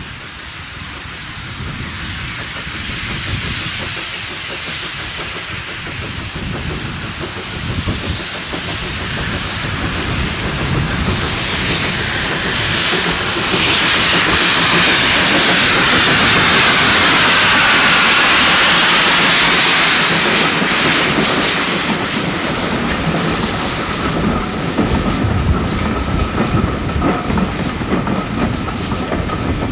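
A pair of LBSCR A1X Terrier 0-6-0 tank engines, No. 72 Fenchurch leading, hauling a train of coaches past: a hiss of steam that swells to its loudest as the engines go by about halfway through. Then the coaches' wheels clack over the rail joints, with a thin steady whine.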